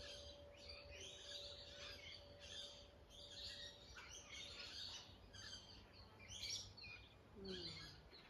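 Many small birds chirping and calling over one another, faint, in short repeated bursts of song.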